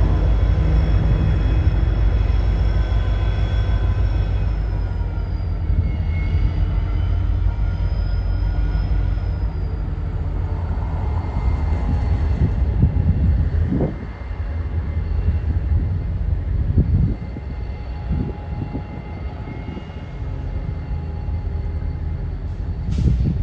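A diesel freight train at work: a low, steady engine rumble with several high whining tones held over it, and a few sharp metallic clanks about halfway through and again near the end.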